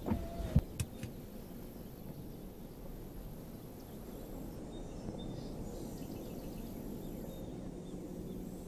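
Steady outdoor ambience with faint insect chirping, after a few sharp clicks and a louder knock in the first second.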